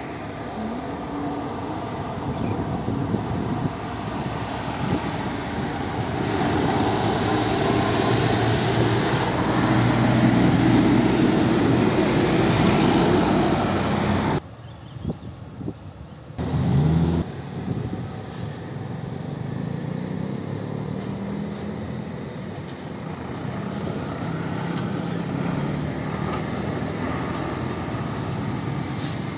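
UD Nissan Diesel trucks' diesel engines running as they pass close by on the road, with other traffic. The engine noise swells over the first dozen seconds, breaks off abruptly at a cut, then gives a short rising rev before settling into a steady run.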